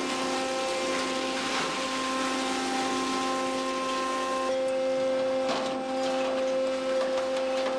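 Fish-processing machinery on a fishing boat running with a steady droning hum over a mechanical rattle. The drone's pitch pattern shifts a little about halfway through, and a few knocks come shortly after.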